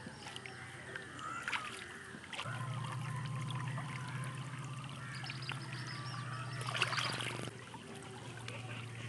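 Water splashing and trickling as hands work a fish free of a gill net in shallow paddy-field water. A low steady hum sits behind it, growing louder about two and a half seconds in, and a louder splash comes about seven seconds in.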